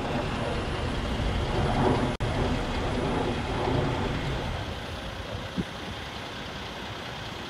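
Heavy tractor-trailer truck hauling a subway car on a lowboy trailer, its diesel engine running and tyres rolling past. The sound cuts out for an instant about two seconds in, and it is quieter and steadier in the second half.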